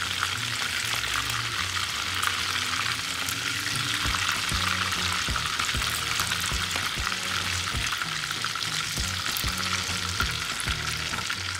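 Batter-coated prawns frying in hot oil in a wok: a steady, dense crackling sizzle.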